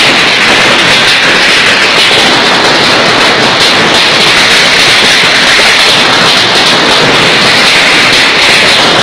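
Heavy hail falling: a loud, dense, steady noise of hailstones pelting down.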